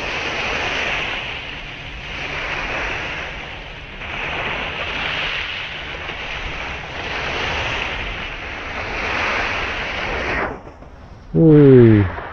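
Rough sea surf washing on the shore, mixed with coastal wind buffeting the microphone, surging and easing every couple of seconds. Near the end comes one short, loud sound falling in pitch.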